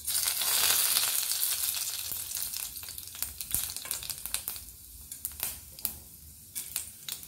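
Fennel seeds, cinnamon, cloves and cardamom dropped into hot oil in a stainless steel kadai, sizzling at once. The sizzle is loudest in the first couple of seconds, then dies down to a quieter fizz with scattered sharp pops.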